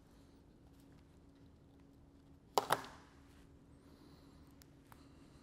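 Two quick knocks close together about two and a half seconds in as small valve parts are handled on a workbench, over a faint steady hum, with a few light ticks of handling afterwards.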